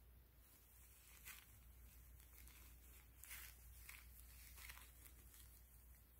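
Faint rustling and crinkling as a full-body silicone baby doll in a disposable diaper is handled and its legs are moved: a few brief scratchy sounds over a low room hum.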